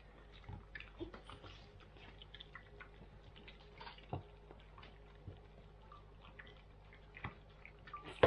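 Several cats eating from bowls: soft, irregular smacking and clicking of chewing and licking, with a faint low hum underneath and one sharper click near the end.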